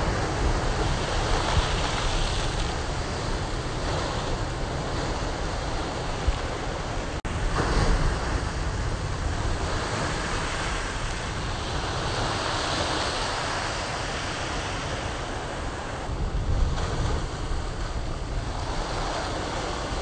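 Heavy ocean surf crashing and surging against rock ledges, a continuous rushing wash with a deep rumble that swells and eases as the waves hit, and wind buffeting the microphone. The sound cuts out for an instant about seven seconds in, then comes back louder.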